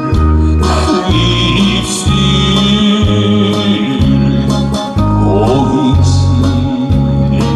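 Korean trot karaoke backing track playing: an electronic keyboard accompaniment over a steady, even bass pulse of about one note a second, with a wavering melody line in the middle.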